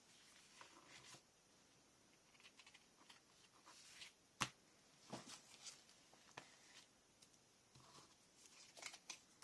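Near silence with faint rustles and small clicks of paper and card being handled, with one sharper tap about four and a half seconds in.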